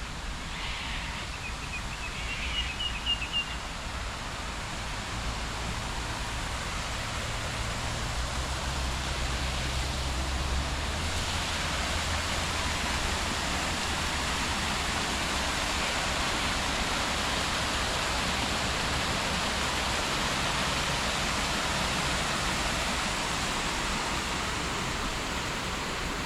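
Steady rain falling, an even hiss that grows louder about ten seconds in. A low rumble underneath stops at about the same point, and a few brief high chirps sound near the start.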